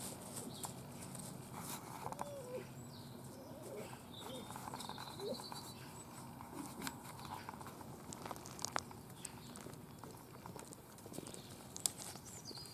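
Red foxes chewing and licking at meat: soft scattered clicks and smacks, with a few sharper ticks toward the end.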